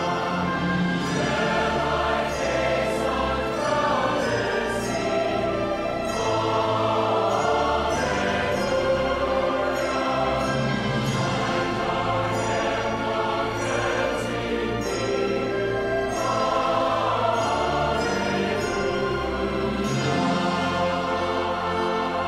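A choir singing a hymn verse with instrumental accompaniment, each line ending in a sung 'Alleluia'.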